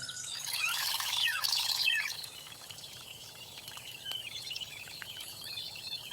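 Several birds chirping and calling over one another in quick, rising and falling notes, busiest in the first two seconds, then sparser and fainter.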